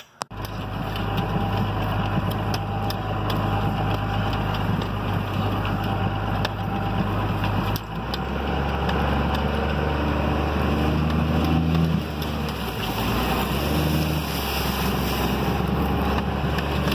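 Ram pickup truck's engine running as it drives a rough trail, heard from inside the cab, with scattered knocks and rattles. The engine note drops about eight seconds in.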